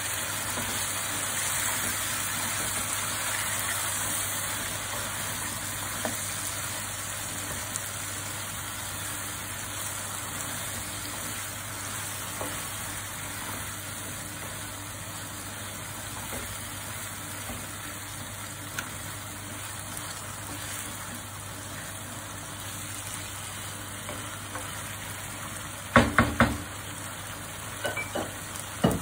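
Chicken pieces sizzling in a wok of onion-tomato masala while being stirred with a wooden spoon, a little louder in the first few seconds, over a steady low hum. Near the end come a few sharp knocks.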